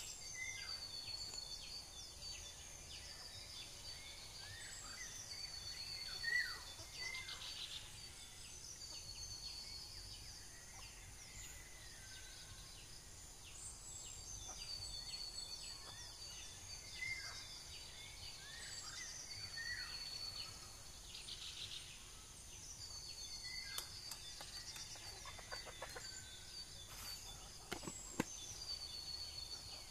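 Birds chirping in short repeated calls, with phrases of high rapid notes every few seconds, over a steady high-pitched insect drone. A few sharp clicks near the end.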